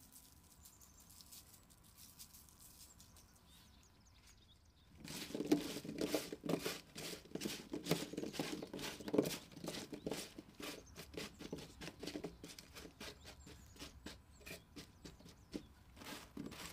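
A faint patter of garlic powder sprinkled from a shaker onto cubed potatoes and eggplant. About five seconds in, a gloved hand starts tossing the cubes on a parchment-lined baking tray: steady rustling of the paper and soft knocks of the vegetable pieces against each other and the tray.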